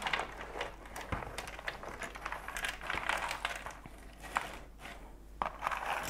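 Cardboard jigsaw puzzle pieces pouring and sliding out of a cardboard puzzle box onto a puzzle tray, with hands pushing through the pile: a dense clatter of small clicks and rustling, with a few sharper ticks.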